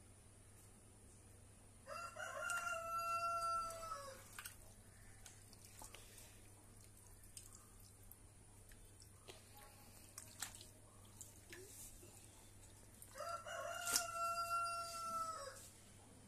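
A rooster crowing twice, each crow about two seconds long and dropping slightly in pitch at its end, about eleven seconds apart. A few faint clicks come between the crows.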